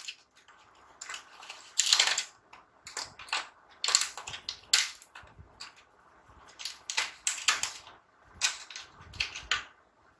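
Plastic crayons clicking and rattling against a plastic crayon case as they are handled, in several quick runs of sharp clicks with short pauses between.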